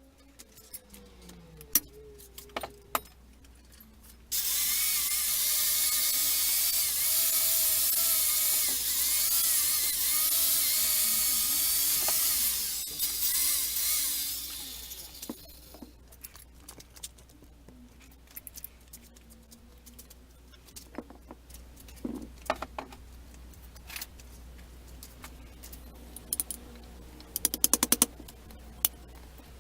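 A power tool runs for about eight seconds, starting around four seconds in, its whine wavering in pitch as it is loaded. Before and after it come scattered sharp clicks and knocks, with a quick rattle of clicks near the end.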